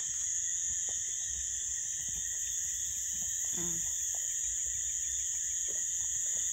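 Steady night chorus of crickets and frogs, several high-pitched tones held without a break.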